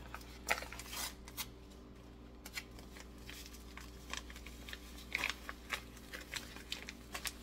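Scattered crisp rustles and short clicks of paper seasoning packets being handled and opened over the soup pot.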